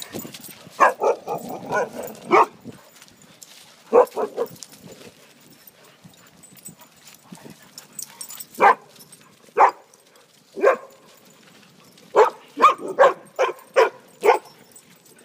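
Dogs barking in rough play, in short barks. There is a quick cluster of barks about a second in, scattered single barks in the middle, and a rapid run of about seven barks near the end.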